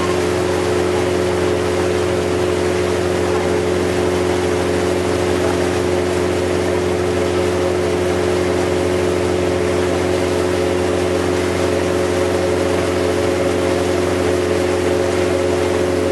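Sightseeing boat's engine running at a steady cruising speed, a constant drone, with the rushing wash of the wake churning behind the boat.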